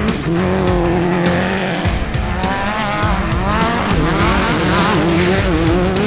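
Class 10 off-road race buggy's engine revving hard, its pitch rising and falling quickly as the throttle is worked through rough sand, with background music.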